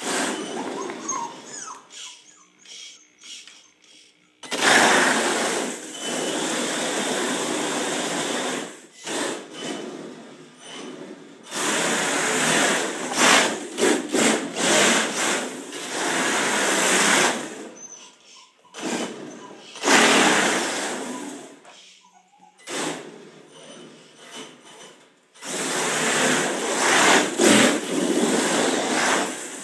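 Brushless electric motor of an HPI Pro D RC drift car running in bursts of a few seconds as the car accelerates and slides its tyres across a smooth hard floor, with short pauses between runs.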